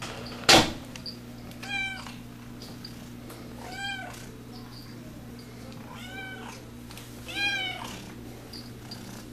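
Five-month-old kitten meowing four times, about two seconds apart, each a short call that rises and falls. A single sharp knock about half a second in is the loudest sound.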